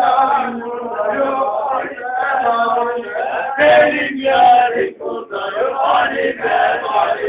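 A group of men singing a Turkish folk dance song together in a chant-like unison, in phrases with a brief break about five seconds in.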